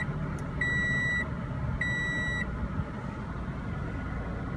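2016 Scion iM's 1.8-litre four-cylinder engine idling at about 1,000 rpm just after start-up, heard from inside the cabin. A dashboard warning chime beeps twice in the first half, each beep about half a second long, and then stops.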